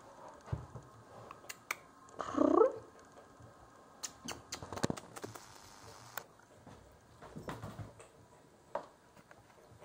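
A cat gives one short meow about two seconds in, the loudest sound here, with scattered light clicks and rustles around it.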